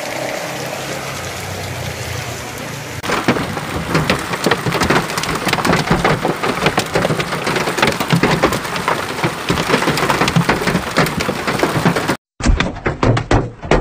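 Heavy hailstorm: a dense, continuous clatter of hailstones striking hard surfaces over the hiss of pouring rain. About three seconds in it jumps to a much louder, thicker pelting, and it cuts out briefly near the end.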